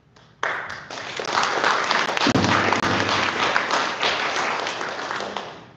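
Congregation applauding, starting about half a second in and dying away near the end.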